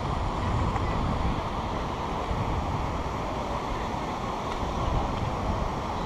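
Steady rush of a mountain river and its waterfall, with wind buffeting the microphone in low gusts.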